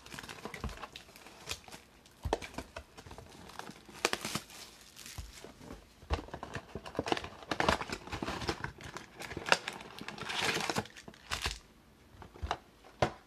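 Plastic shrink wrap being torn and crinkled off a sealed trading-card mega box, with scattered cardboard taps and clicks. Near the end the box is opened and the foil card packs slid out with a longer rustle.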